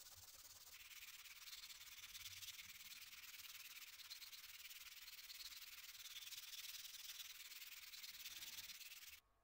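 Abrasive paper sanding the metal housing of an old Solingen knife: a steady, scratchy hiss that turns brighter about a second in and cuts off suddenly near the end.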